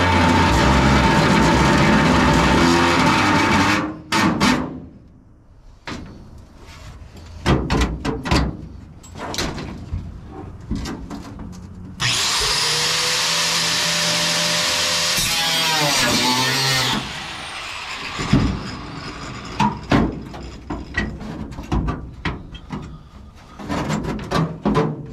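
Power tool running in two long bursts on the steel floor and seat platform of a 1950 Chevy 3100 cab, the second burst winding down in pitch as it is let off. Between the bursts, sharp metal clanks and knocks as parts and tools are handled.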